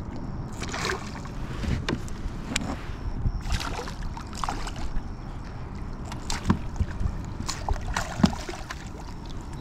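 Water splashing and irregular knocks and scrapes on a fishing kayak while a hooked bass is played beside it, over a steady low rumble.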